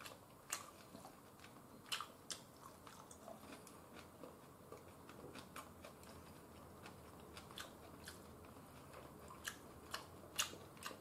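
A person eating noodles with chopsticks: soft chewing with scattered sharp clicks of the chopsticks against the bowl, the loudest about ten seconds in.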